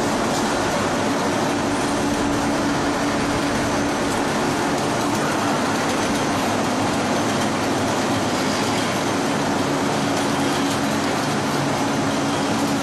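Aluminium rod rolling mill running: a steady, dense mechanical noise with an unbroken low hum.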